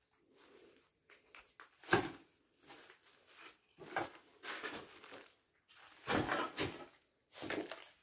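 Irregular footsteps crunching and rustling over debris and undergrowth, the loudest step about two seconds in.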